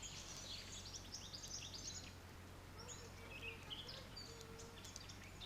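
Birds chirping and singing, many quick high calls overlapping, fairly faint.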